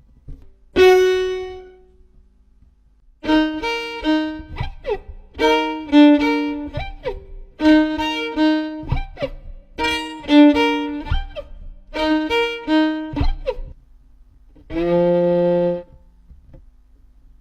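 Violin played solo: one short note, then a quick figure of short notes repeated about five times, each ending in a sliding note, and a single held lower note near the end.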